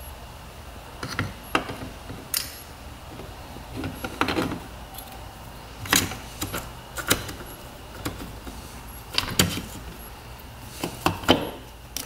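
Irregular light metallic clinks and knocks as a cast-aluminium clutch side cover is handled and worked into place against the crankcase of a 1993 Honda CR125 engine.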